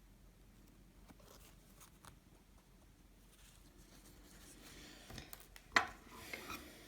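Faint rustling and soft taps of fabric and ribbon being handled by hand, with one sharp click near the end.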